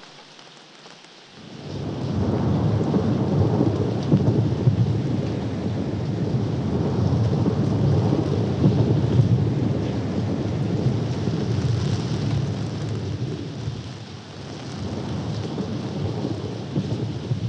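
Rain, joined about a second in by a loud, long rumble like rolling thunder, which carries on and eases briefly near the end.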